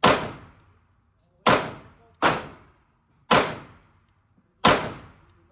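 Five handgun shots fired at an irregular pace, one every second or so, each a sharp crack with a ringing tail that dies away in about half a second.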